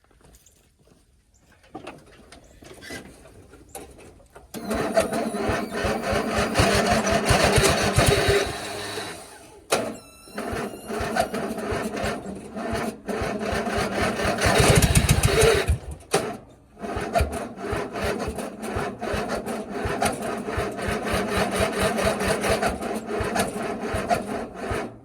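Electric starter cranking the engine of a 1997 MTD Yard Machines riding mower in a cold start, in three long bursts with short stops about ten and sixteen seconds in. The engine turns over but does not catch, and the battery is nearly dead.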